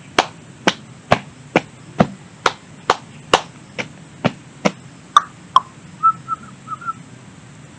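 Hand clapping: about a dozen sharp single claps at a steady two a second, stopping about five and a half seconds in. A few faint short high chirps follow near the end.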